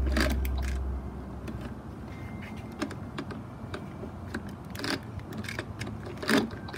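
Light plastic clicks and taps, scattered and a few seconds apart, as a toy power drill is worked against the wheel of a large plastic toy car.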